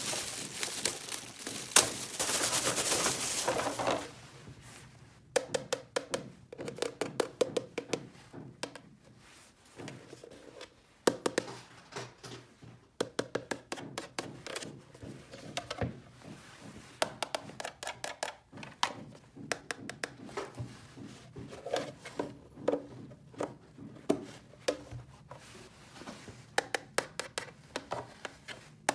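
Small plastic toy pieces being handled: a loud rustle for about the first four seconds, then a long, uneven run of light clicks and taps.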